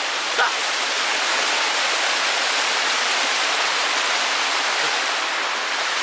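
Small waterfall pouring over rocks into a mountain stream: a steady, even rush of falling water.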